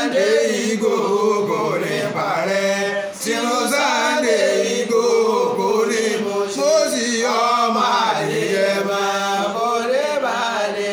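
A man chanting a slow, wavering melody in Yoruba. The voice is unbroken and held long on each note.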